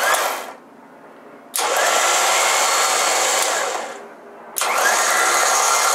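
Smittybuilt electric winch motor running twice, each time for about two and a half seconds, with a whine rising as it spins up at each start.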